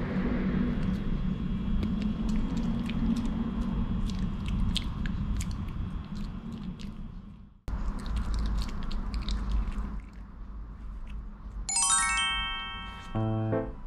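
Maltese dog chewing and gnawing, with many small sharp clicks of its teeth over a low steady hum. Near the end a bright chime sounds and background music begins.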